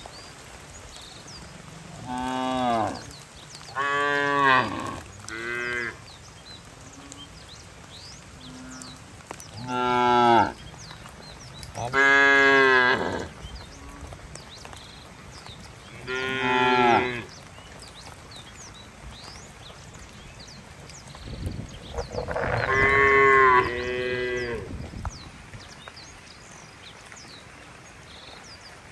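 Cattle mooing over and over: about seven drawn-out calls at uneven intervals, most lasting a second or less, with the longest and loudest running for about three seconds in the second half.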